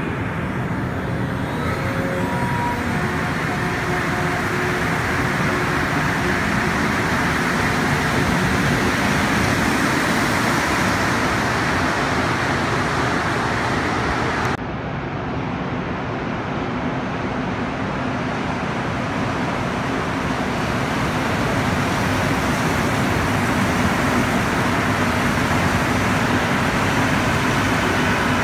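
Montreal Metro MR-73 rubber-tyred subway trains running alongside a station platform: a loud, steady running noise of tyres and motors that swells over the first several seconds. About halfway through it breaks off abruptly, and another train running past a platform takes over.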